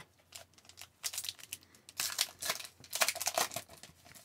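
A hockey card pack's wrapper being torn open and crinkled by hand, in three crackly bursts about a second apart, the last two loudest.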